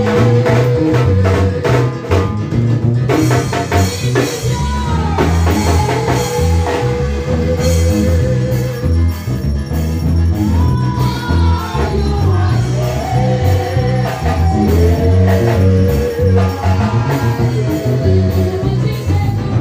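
Upbeat gospel music: singing over a heavy bass line and steady, evenly spaced percussion.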